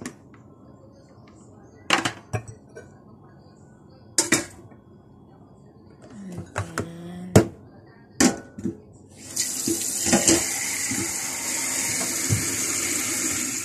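Hard knocks and clacks as the plastic lid and ceramic inner pot of an electric stew pot are handled. From about nine seconds in, a tap runs steadily into a steel sink.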